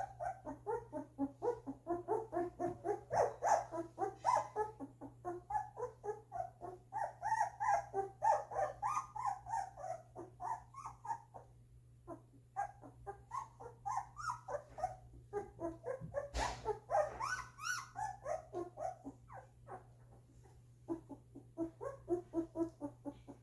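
A litter of two-week-old golden retriever puppies whimpering and squeaking, many short high calls overlapping several times a second, easing off briefly about twelve seconds in and again near twenty seconds.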